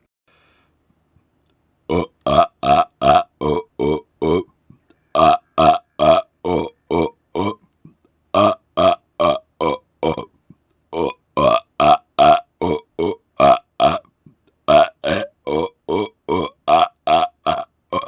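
A man burping on command in rapid-fire runs of short burps, about three a second. They start about two seconds in and come in five runs separated by brief pauses.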